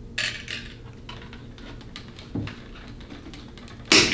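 Pliers cutting and working a metal wire rod: scattered small clicks, a sharper click about two and a half seconds in, and a burst of metallic clinking near the end.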